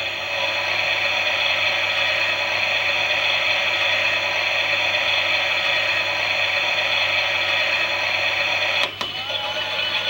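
Klein Miele 6941 WT toy washing machine running with a steady whirring, hissing motor noise, broken by a sharp click about nine seconds in.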